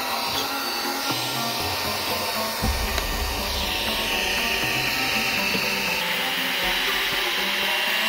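Mini cordless handheld vacuum cleaner running steadily with a high whine and a rushing hiss of air.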